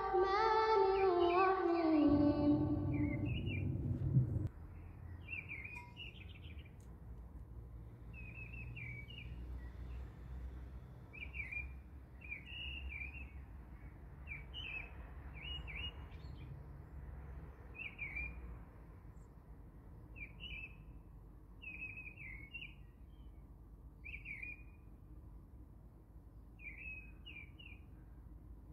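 A sung musical intro with a descending melody cuts off about four seconds in. A bird then chirps in short, quick calls every second or two over a steady low background hum.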